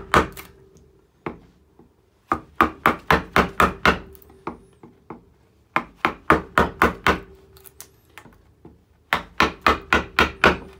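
Mallet striking a number 5 sweep carving gouge as it cuts into alder wood, in three quick runs of about six or seven sharp taps at roughly four a second, with pauses between.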